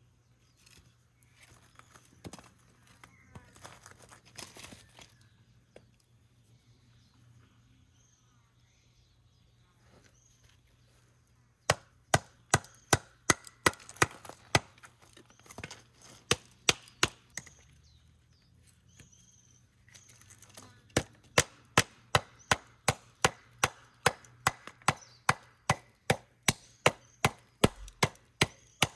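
Firewood being chopped with quick, regular blows, about three a second, in two runs: the first starts about twelve seconds in and stops after about five seconds, and the second starts about twenty-one seconds in. Before them there is faint rustling.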